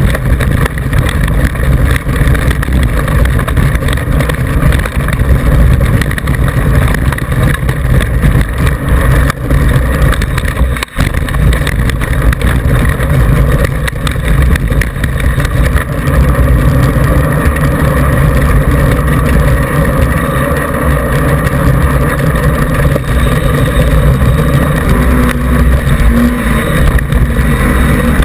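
Loud, steady rush of wind buffeting and rattling picked up by a camera mounted on a mountain bike descending a rocky dirt track, with the bike jolting over stones throughout.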